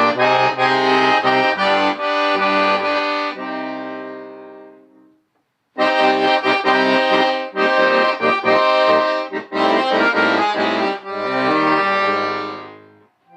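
Accordion playing chords over a bass line. The first phrase fades out about four seconds in, and after a short pause a second phrase of quick, detached chords follows and dies away near the end.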